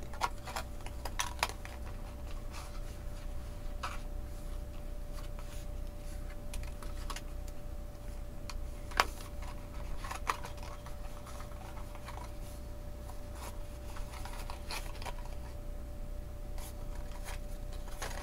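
Irregular light taps, clicks and rustles of cardstock being handled as the glued side seam of a paper popcorn box is pressed and held together, with one sharper click about halfway through, over a faint steady hum.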